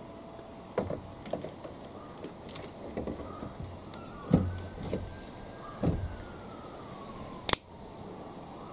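Plastic case of a car battery being set and pushed into place on its tray: a run of knocks and bumps, the two heaviest a little past four and six seconds in, then a sharp click near the end as the plastic carry handle is folded down. A faint high tone drifts up and then down in the background.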